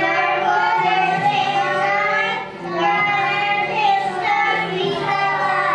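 A group of children singing a chant together in sung phrases, with a short break about two and a half seconds in.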